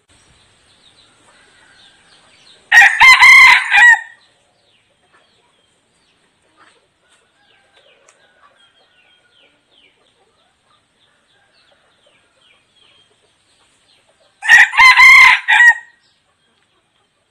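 Decoy red junglefowl cock crowing twice, about twelve seconds apart, each crow short and clipped at about a second and a half. It is the crow a tame decoy cock gives to lure wild junglefowl. Faint chirps sound between the crows.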